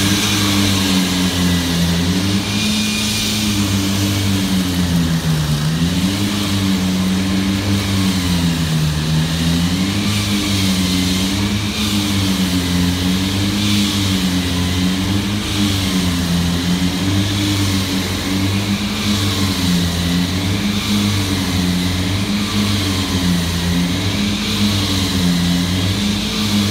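Construction machine engine running continuously, its pitch rising and falling in a slow, regular wavering about every two seconds over a steady low hum.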